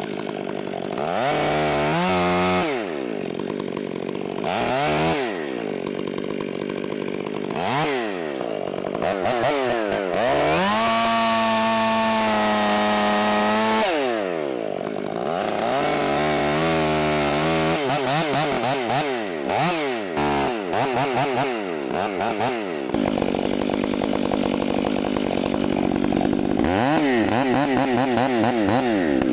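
Two-stroke chainsaw felling a tree: the engine is revved up and down again and again, held at full throttle for about four seconds around the middle as it cuts, then blipped several more times before a steadier run near the end.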